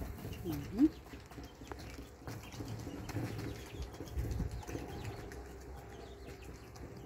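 Hands pressing and patting soft dough flat on an oiled metal baking tray, soft low thuds and rustling. A short rising squeak-like call comes under a second in.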